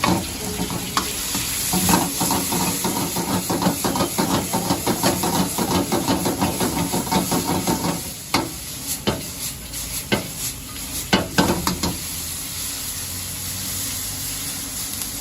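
Food sizzling in a hot pan while a metal spatula stirs and strikes the pan, first in a quick steady run of clanks, then a few scattered ones, over a steady frying hiss.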